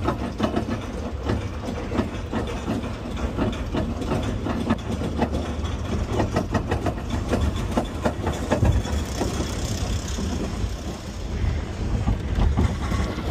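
Tennessee Tornado steel roller coaster train climbing its chain lift hill, the lift chain and anti-rollback catches clacking about three times a second. About nine seconds in the clacking stops as the train crests and starts down the drop, giving way to a smoother rush of wheels on track and wind.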